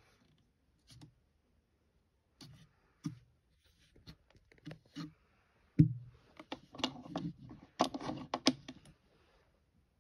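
Irregular light clicks, knocks and scrapes of handling noise, sparse at first, then busier and louder from about six to nine seconds in, with a sharp knock just before that.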